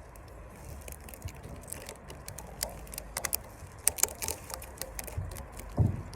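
Rubber bands being stretched and snapped onto a watermelon tightly bound with hundreds of bands: a run of sharp clicks and snaps, with one dull thump near the end.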